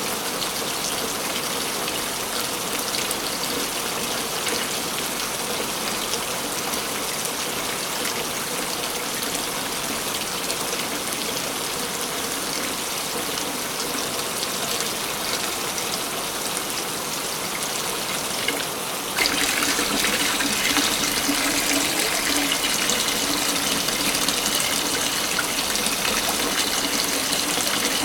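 Waterfall: a steady rush of falling water. About 19 seconds in it changes abruptly to a louder, brighter splashing.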